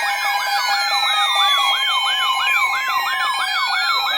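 Several sirens sounding together: one sweeps up and down rapidly, about two and a half cycles a second, over slower falling wails and a few steady tones.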